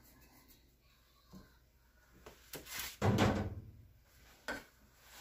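Kitchen handling noises: a few light knocks and, about three seconds in, a louder dull thud that trails off briefly, with another short knock near the end.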